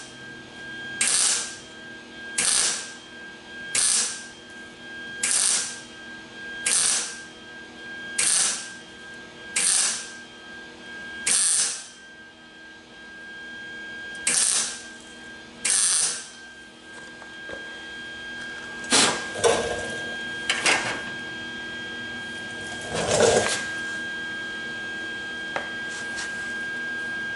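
MIG welder laying short tack welds along the edge of a 1974 MGB's steel door skin: about ten half-second crackles, roughly one every second and a half. After these comes a pause, then a few louder irregular knocks and clatters.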